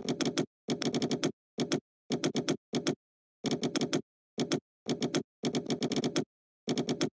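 Computer keyboard being typed on: quick runs of keystroke clicks, broken by short gaps of complete silence.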